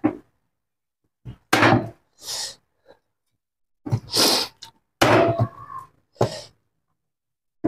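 A meat cleaver chopping a whole rooster into pieces on a wooden cutting board: several separate chops, unevenly spaced, with short silences between.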